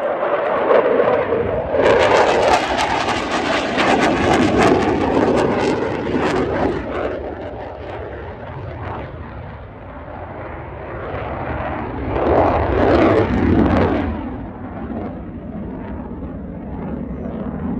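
Saab JAS 39 Gripen fighter jet flying a display overhead. Its jet noise swells sharply about two seconds in with a harsh crackle, eases off through the middle, then rises again briefly with a sweeping whoosh as it passes before dying down.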